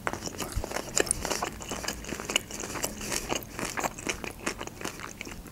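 Close-miked chewing of a mouthful of sushi roll: a steady run of small mouth clicks and smacks.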